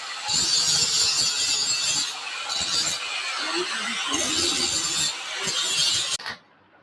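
Metalworking on steel square bar: harsh scraping noise in uneven stretches of about a second each, stopping suddenly about six seconds in.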